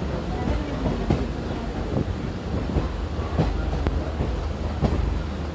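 Passenger train running on the rails, heard from on board: a steady low rumble of the wheels with sharp, irregular clacks as they cross rail joints.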